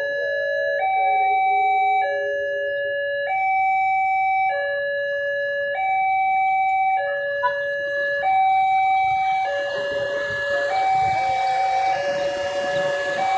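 Railway level-crossing electronic warning siren sounding a steady two-tone high-low pattern, each tone lasting a little over a second. From about nine seconds in, the rising noise of an approaching train builds beneath it.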